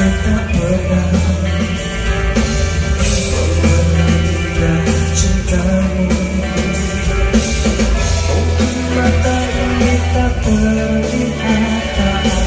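Live band playing a Malay rock ballad loudly and steadily, in a mostly instrumental passage between sung lines, with guitar, bass and drums.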